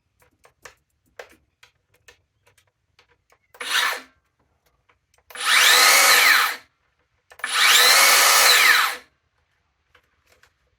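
Makita 40V 125 mm cordless circular saw (HS006G) test-run with no load: after a few light clicks, a short blip of the trigger, then two longer runs, each whining up to speed and winding back down when the trigger is let go.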